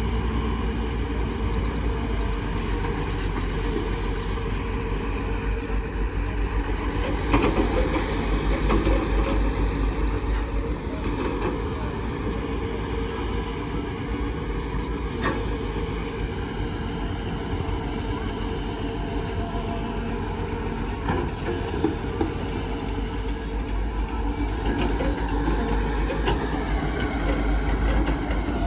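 Heavy vehicle engine running steadily with a low hum, and a couple of sharp knocks partway through.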